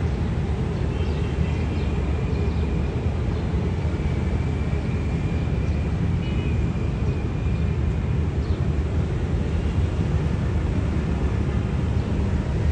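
Steady low rumble of an approaching ZCU20 diesel-electric locomotive, with faint thin high tones now and then.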